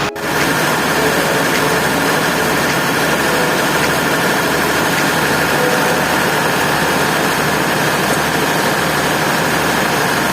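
Ship's diesel engine running steadily in the engine room: loud, even machinery noise with a few faint steady tones.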